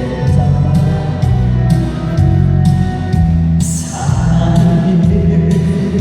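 Trot song accompaniment with a steady drum beat about twice a second and a heavy bass line, with a cymbal crash about three and a half seconds in; singing may be faintly mixed in.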